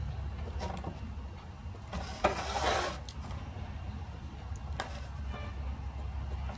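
A pen nib and hand working on drawing paper, heard over a steady low hum. A little over two seconds in there is a click and a short scratchy rustle, with a few faint taps elsewhere.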